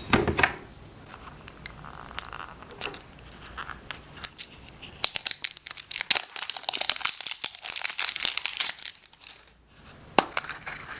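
Scattered light clicks of small plastic items being handled, then about four seconds of dense crinkling and tearing as a surprise toy's wrapper is torn open.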